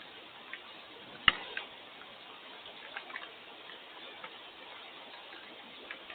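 Steady hiss of rain with scattered, irregular drops tapping close by; one sharp, louder tap comes about a second in.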